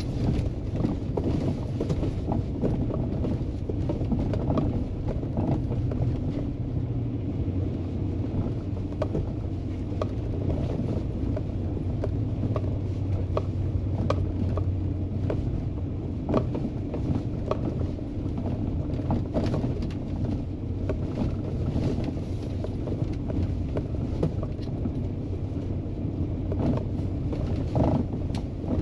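ATV engine running steadily at low speed over a rough trail, with frequent knocks and rattles as the machine jolts over bumps.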